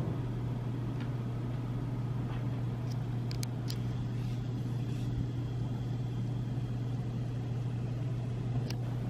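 A steady low hum with a few faint, light clicks over it.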